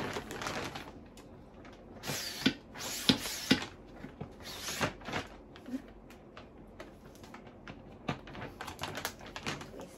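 Plastic hand pump drawing air out of a vacuum storage bag: several plunger strokes, each a hissing rush of air with clicks from the plunger and valve, strongest in the first half and lighter clicks near the end.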